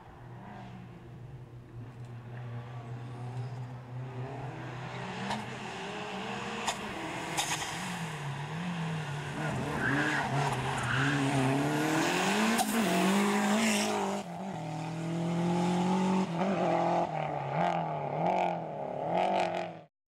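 Fiat Uno Abarth slalom car's engine revving up and falling back again and again as it weaves through cone chicanes, growing louder as it approaches, with a few sharp cracks; the sound cuts off suddenly at the end.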